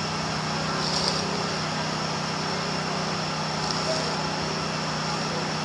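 Steady mechanical drone with a constant low hum, like a small engine or machine running outdoors, with a few faint ticks.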